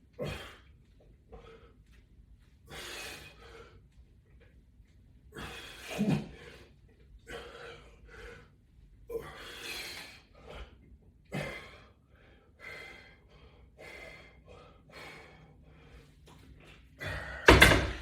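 A man breathing hard with short, forceful exhalations every second or so, the effort of exercise repetitions. A louder thump comes near the end.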